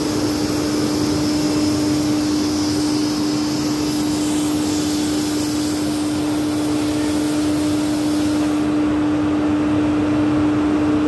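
Battenfeld HDPE corrugated-pipe extrusion line running: a steady machinery din with a constant low hum and a dense hiss. The highest part of the hiss drops away about nine seconds in.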